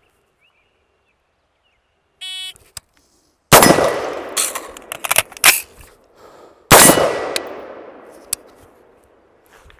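A shot timer's start beep, then an unsuppressed 5.56 AD-15 AR pistol firing a quick string of shots during a reload drill. After a pause of about a second for the magazine change, one more shot rings out and fades slowly.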